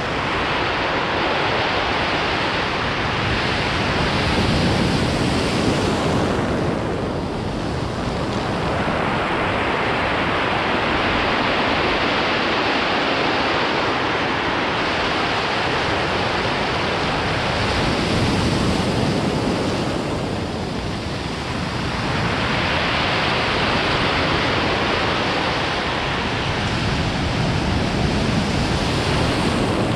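Ocean surf breaking and washing up a stony beach: a continuous rush that swells several times as waves come in.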